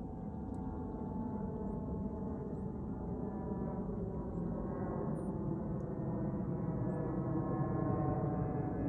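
A distant engine drone: a steady hum made of several held pitches, slowly growing louder.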